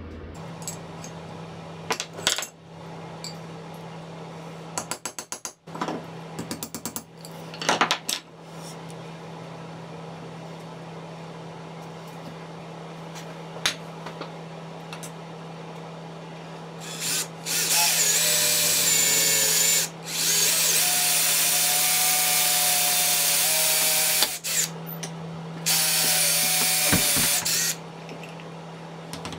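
Cordless drill drilling into a stack of wooden discs in three runs of a few seconds each, its motor pitch shifting as the load changes. A few sharp clicks and knocks from hand tools come earlier.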